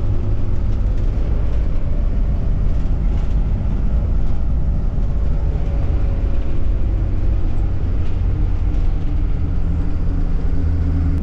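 Steady low engine drone and road rumble of a moving road vehicle.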